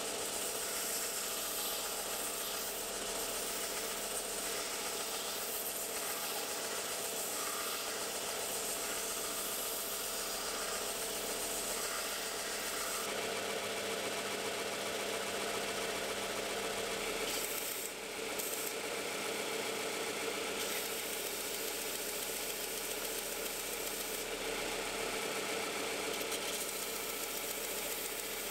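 Stationary belt sander running steadily, with a wooden razor handle scale pressed against the moving belt, its steady motor hum under a rough sanding hiss that strengthens and eases as the wood is worked; the sound dips briefly about eighteen seconds in.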